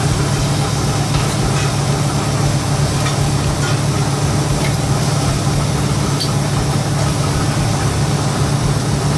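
A steady low mechanical hum like an idling engine or motor, unchanging in level. A few faint, sharp ticks sound over it.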